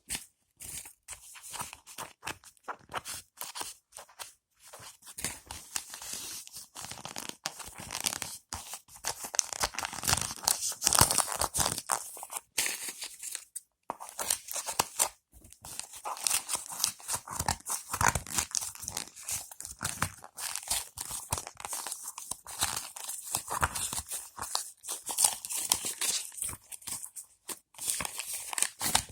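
Packaging being torn and crinkled by hand, in irregular crackling bursts with brief pauses.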